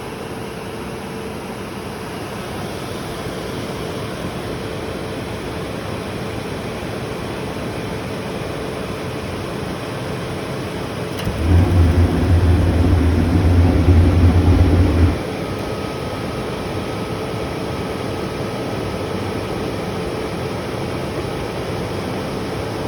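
Dometic RV furnace running with a steady blower whoosh. About halfway through, a loud low buzz comes in for about four seconds and then stops, and a faint high whine continues after it.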